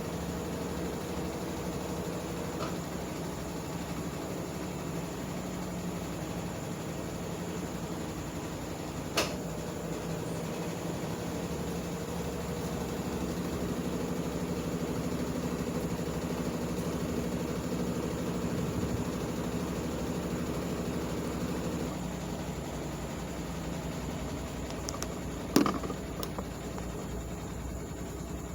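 Consul washing machine running with a steady motor hum that shifts in pitch about three quarters of the way through. Two sharp clicks cut through it, one about a third of the way in and a louder one near the end.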